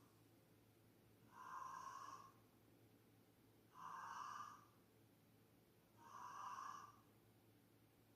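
A neighbour snoring, faint: three snores about two and a half seconds apart, each lasting just under a second.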